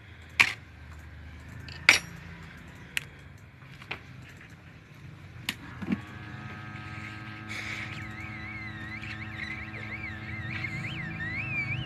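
A handful of sharp clicks and taps, like small tools and phone parts being handled, over the first six seconds. From about six seconds in, background music starts: a held drone under a wavering high melody.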